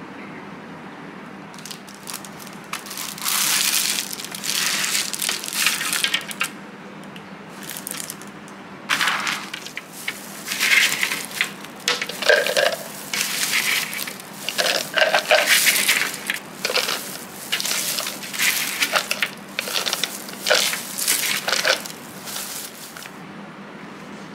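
A plastic bag worn as a glove crinkling and rustling while baked cookies are scooped and clatter into a clear plastic jar, in repeated bursts of crackly rustling and small clicks over a low steady hum.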